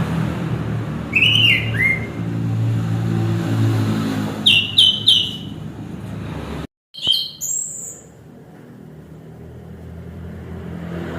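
Orange-headed thrush singing short clear whistled phrases in separate groups, some notes falling and one rising high near the end. A steady low hum runs underneath and cuts off with a brief silence about two-thirds through.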